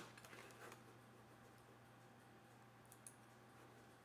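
Near silence: low room hum with a few faint clicks of a computer mouse, a sharper one at the start, several small ones just after, and another couple about three seconds in.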